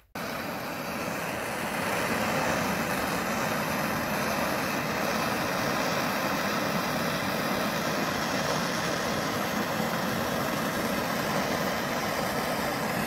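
Hand-held, hose-fed gas torch burning with a steady rushing noise as its flame heats a steel screwdriver shank clamped in a vise. It gets a little louder about two seconds in.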